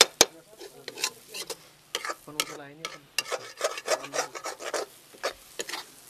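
Large steel spoon scraping and stirring scrambled egg around a metal kadai: repeated rasping strokes of metal on metal, with two sharp clanks of spoon against pan right at the start.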